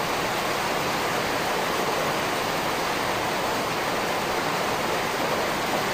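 Steady, even hiss of background noise, with no clinks or knocks from the shaker.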